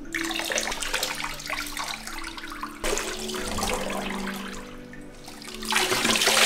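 Water poured from a plastic rinse cup over a small dog standing in a bathtub, splashing onto its coat and into the bathwater in three pours, the last one the loudest.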